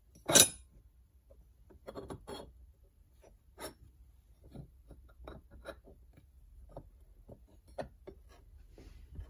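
Light metal clicks and clinks as bent steel tubes and their plate are shifted against steel 1-2-3 blocks on a workbench, with the sharpest click about half a second in and smaller knocks and rubs scattered after it.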